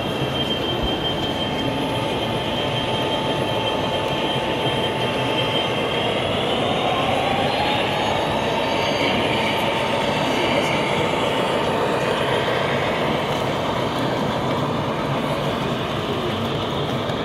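Model freight train hauled by Conrail-liveried diesel locomotives running along a curved track: a steady rolling rumble with thin high whining tones that rise slightly about six to eight seconds in.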